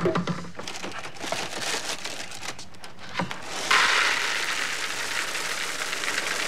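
Cereal box rustling, then dry cereal pouring from the box into a bowl from a little past halfway: a steady, dense rattling hiss of flakes hitting the bowl.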